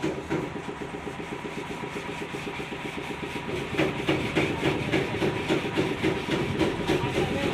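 A machine running with a fast, regular pulsing beat, growing louder about four seconds in.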